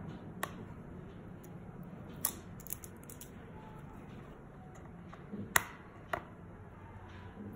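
A rigid cardboard gift box handled and pried open by hand: about five sharp clicks and taps of the box and its lid under the fingers, the loudest about five and a half seconds in, over a low steady hum.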